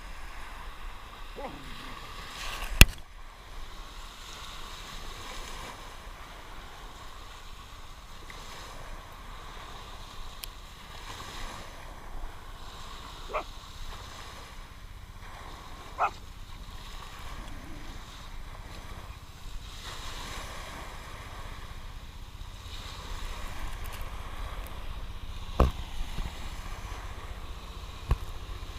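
Small waves washing up a sandy beach, with wind buffeting the microphone. A few short sharp knocks cut through it, the loudest about three seconds in.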